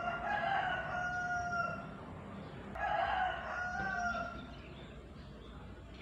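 A rooster crowing twice, each crow a held, pitched call lasting about a second and a half, with a short pause between them.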